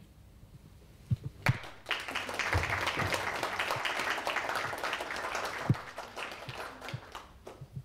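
Audience applauding: a few claps about a second in, then steady clapping from about two seconds in that thins out and stops near the end.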